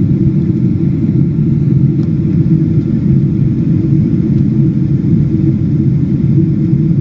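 Boeing 777-200 airliner's steady low rumble, even in level with no changes.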